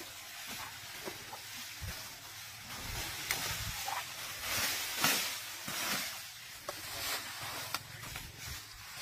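Asian elephant feeding on leafy bamboo and grass: its trunk pulls and handles the vegetation, making a swelling rustle with scattered sharp crackles, loudest about halfway through.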